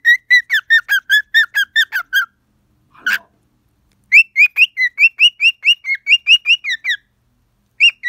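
Cockatiel chirping at its reflection in a small mirror: quick runs of short whistled chirps, about five a second. The chirping breaks off for a couple of seconds, with one brief scratchy noise about three seconds in, and starts again about four seconds in and once more near the end.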